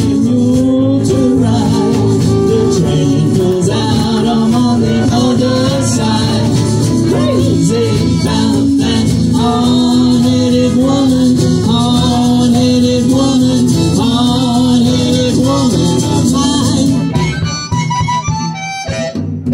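Live band with upright bass and guitars playing through a PA system, a steady tune with a bending melody line over a full low end. Near the end the playing thins out to a few scattered notes and drops away briefly.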